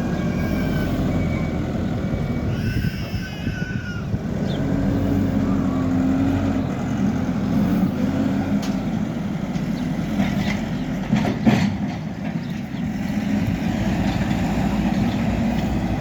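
Hidromek HMK 102S backhoe loader's diesel engine running under working load, its pitch rising and falling, with a couple of sharp metallic knocks about eleven and a half seconds in.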